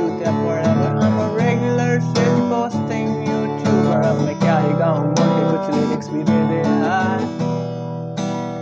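A song with strummed acoustic guitar chords and a voice singing over them.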